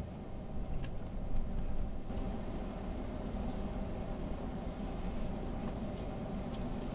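Car driving, a steady low rumble of engine and road noise heard from inside the cabin, with a few faint clicks.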